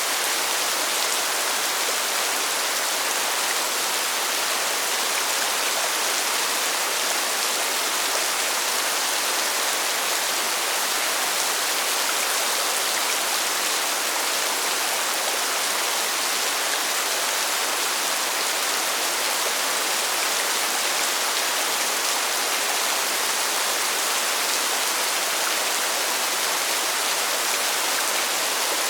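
Steady rain falling: a dense, even hiss with little low rumble, flecked with faint ticks of single drops.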